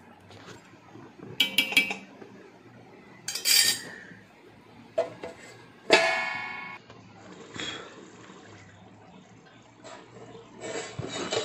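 A ladle clinking and scraping in a pan of thick chicken curry as it is stirred. About six seconds in, a stainless steel lid is set down on the pan with a sharp clang that rings briefly, covering the curry to cook. A few light clinks follow near the end.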